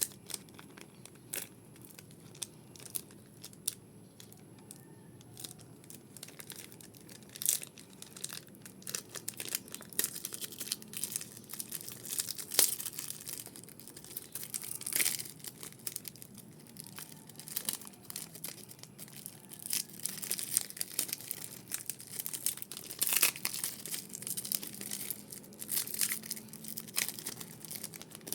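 Foil booster pack wrappers being torn open and crinkled by hand, a run of irregular sharp crackles, sparse at first and much busier from about eight seconds in.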